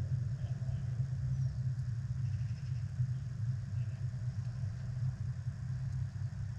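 A steady low rumble that wavers in loudness.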